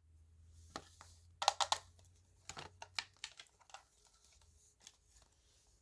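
Plastic toy packaging being handled and opened: a run of sharp plastic clicks and taps, loudest in a quick cluster of three about a second and a half in, then scattered lighter clicks.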